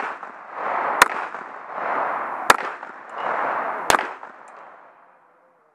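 Three gunshots at a steady pace, about one every second and a half, each a sharp crack, with a rushing noise between them that fades out near the end.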